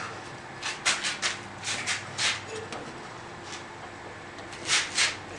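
Rubber bandsaw tire being worked by hand onto the upper wheel of a Craftsman 103-24250 bandsaw: short scuffing and rubbing sounds of rubber, fingers and wheel, in scattered bursts, the two loudest near the end.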